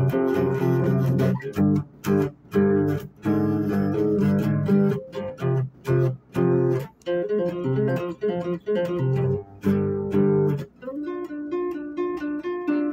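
Guitar music: strummed chords played in short blocks with brief gaps between them.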